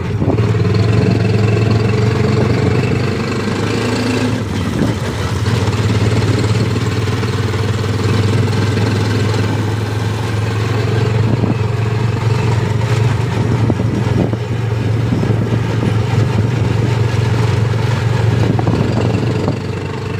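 Engine of a moving vehicle running at a steady speed, with an even low hum.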